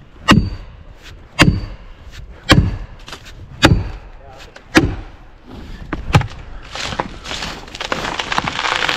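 Plastic felling wedges being driven into the back cut of a standing tree: six sharp blows about a second apart. From about seven seconds in, a rising crackle and rush as the hinge wood tears and the tree starts to go over.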